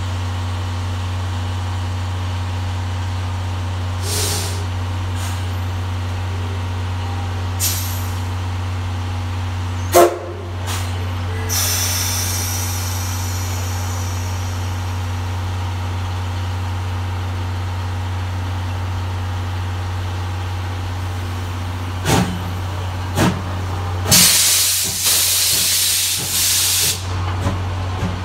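C11 steam locomotive standing with a steady low hum, giving a short hiss of steam about twelve seconds in. Near the end come two knocks and then a loud hiss of steam lasting about three seconds as the train starts to move off.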